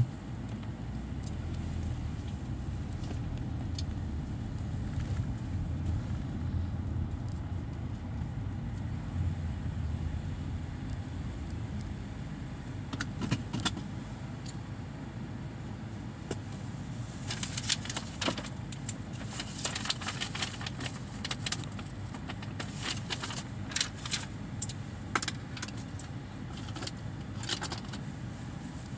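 Car engine rumble heard from inside the cabin as the car rolls forward, easing off after about twelve seconds once it stops. In the second half come scattered light clicks and rattles of small objects being handled.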